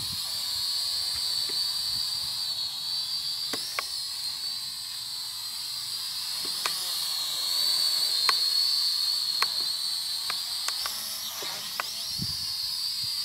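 Small quadcopter drone hovering, its propellers giving a steady high-pitched whine that wavers in pitch as the motors speed up and slow, dipping near the end, with a few faint clicks.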